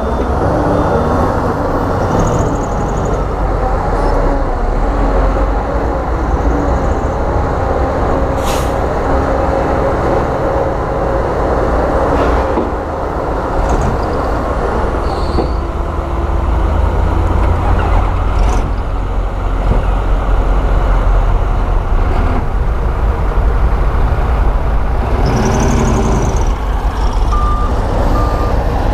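Heavy diesel construction machinery running under load, a steady low engine rumble. Brief high squeals come through now and then, with a couple of sharp clicks.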